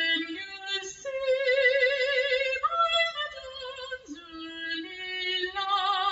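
A woman singing long held notes with vibrato, stepping from note to note, as background music.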